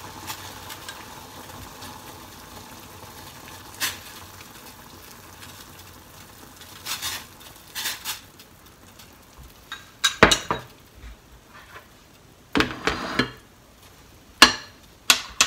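Chopsticks, a ceramic bowl and a spoon clicking and clinking against a clay pot and a plastic container while raw chicken pieces go into simmering broth. The clinks come singly at first and in short clusters from about halfway through, over a low steady hiss from the gas hob.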